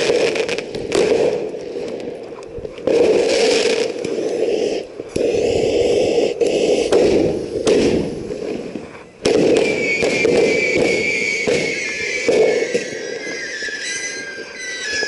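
Consumer ground firework going off close by, with a dense crackling hiss and many sharp pops. From about two-thirds of the way in, a thin tone slides slowly down in pitch over the crackle.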